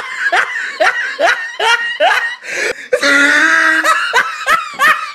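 A person laughing hard in quick repeated bursts, with a longer held cry about three seconds in.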